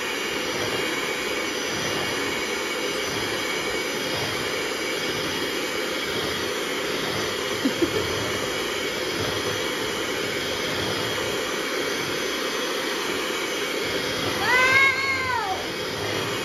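Electric hand mixer running steadily, its twin beaters whisking cake batter in a stainless steel bowl, with a couple of brief clicks about halfway through. Near the end a short rising-and-falling cry sounds over the motor.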